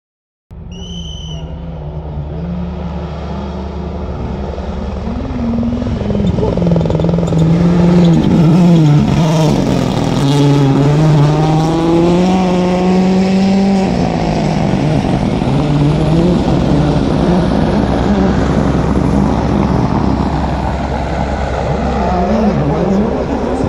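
Rally car engine at speed along the stage, its pitch climbing and dropping again and again through gear changes, growing louder over the first several seconds and staying strong to the end. A short high tone sounds about a second in.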